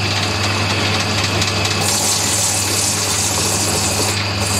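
Electric motor of a cobbler's shoe finishing machine running with a steady hum, with the hiss of a shoe being buffed against its spinning wheels. The hiss grows stronger about two seconds in and dips briefly near the end.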